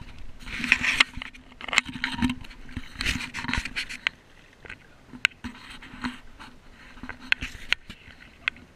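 Kayak paddle strokes: the paddle blade swishing and splashing through the water about once a second for the first few seconds, then quieter, with drips and a few light knocks and clicks.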